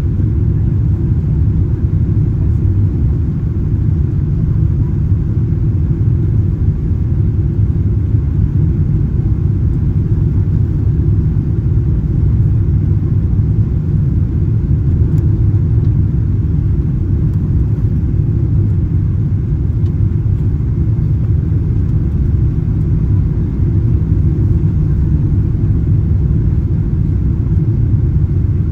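Cabin noise of a Boeing 777-200ER on final approach, heard from a seat behind the wing: a steady, even low rumble of the engines and rushing air that holds unchanged throughout.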